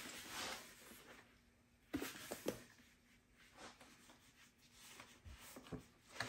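Granular dry cure mix poured from a bowl onto a pork belly in a plastic tub with a brief soft hiss, then a gloved hand rubbing it into the meat: faint gritty rustling with a few light knocks about two seconds in.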